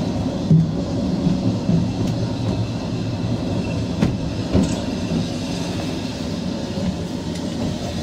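A narrow-gauge train rolling slowly along the track, heard from aboard: a steady low rumble of wheels on rail, with a few sharp clicks from rail joints and pointwork.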